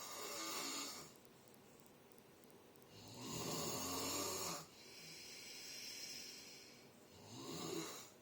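Snoring in slow breaths a few seconds apart. There is one near the start, a longer and louder snore with a low rumble about three seconds in, then a softer breath, and a short one near the end.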